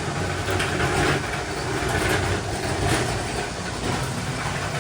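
Steady low machinery rumble and hum, with a rattle or clatter recurring about every half second to a second.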